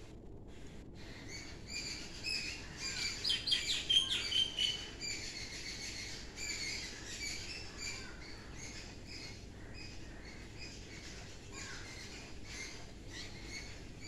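Birds chirping and calling, many short high chirps that are densest and loudest about two to five seconds in, then thinner.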